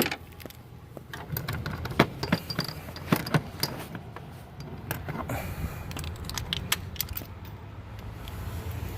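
Metal hand tools clinking and clicking irregularly as a spark plug socket and extension are handled and worked down into a spark plug well, over a low steady rumble.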